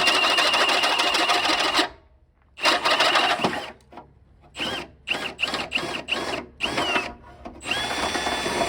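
Electric drill boring out a steel pin hole to take a 1-inch pivot pin. The drill runs steadily for about two seconds and stops, then comes back in a short run and a string of quick trigger pulses, its whine dipping and rising with each one. Near the end it settles into a steady run again.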